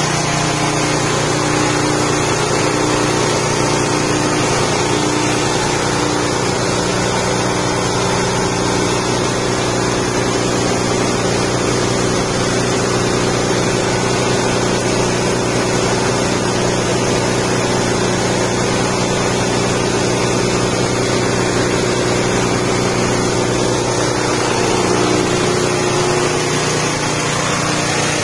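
Rice-husk grinding machine driven by a 6.5 hp petrol engine, running steadily at a constant speed.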